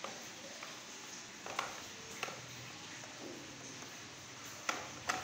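A plastic broom with a metal handle sweeping stone steps, its head knocking against the steps in a handful of sharp taps, two close together near the end.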